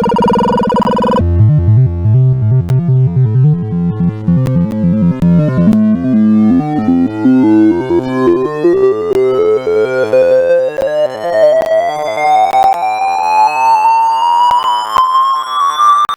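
Computer-generated sine-like beeps from a sorting-algorithm sonification, each pitch standing for an array value. A quick rising sweep cuts off about a second in, then a rapid jumble of short low tones starts, out of which a steadily climbing tone emerges and rises higher to the end as the array falls into order.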